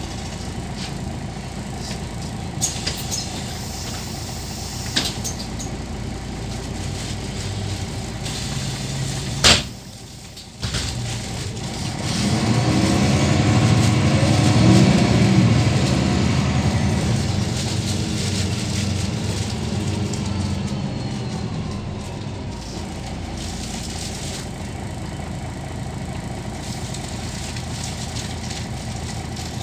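MAN D2866 six-cylinder diesel of a 2003 MAN NL263 low-floor city bus heard from inside the passenger cabin, running as the bus drives, then pulling harder from about twelve seconds in, loudest a few seconds later, and easing off. A sharp click comes just before ten seconds, followed by a brief dip in the sound.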